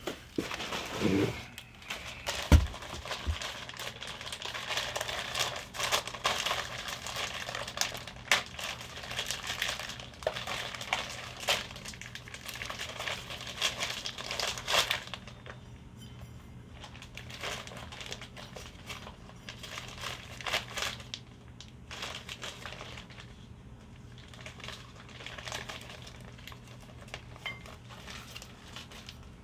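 Packing material crinkling and rustling as hands rummage through a box of car parts, with scattered clicks and a sharp knock about two and a half seconds in. It is busiest in the first half and becomes more sporadic later.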